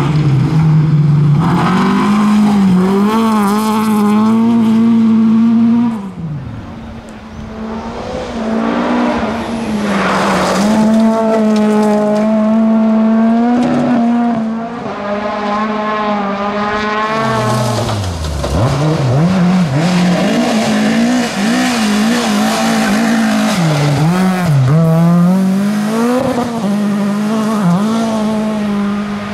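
Tuned rear-wheel-drive Volvo rally car engine at full throttle, its revs held high and steady for several seconds at a time. The revs drop sharply about six seconds in and again just past the middle, then climb back, with tyre noise underneath.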